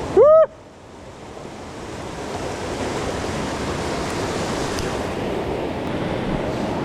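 Mountain stream rushing steadily, growing louder over the first couple of seconds and then holding even. Right at the start, a short loud voice-like sound rises and falls in pitch.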